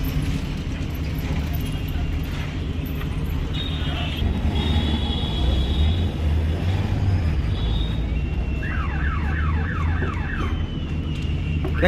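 Steady low engine rumble of road traffic, with thin high tones coming and going. Near the end there is a quick run of about half a dozen short falling chirps.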